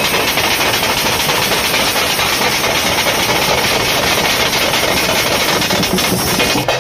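A street drum band of side drums, bass drums and hand cymbals playing a fast, dense, continuous beat.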